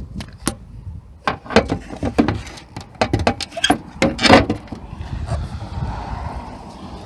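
Hard plastic clicks and knocks, a quick cluster of them through the middle, as an aftermarket tail light housing is pushed into place on a 1999 Honda Accord. Wind rumbles on the microphone throughout.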